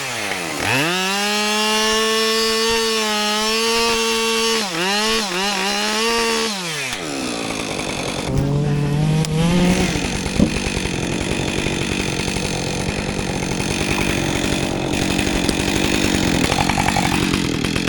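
Two-stroke chainsaw at full throttle cutting wood, its high engine note sagging twice as the chain bites into the cut. About seven seconds in it drops back to a rapid, uneven idle, which runs for the rest of the time.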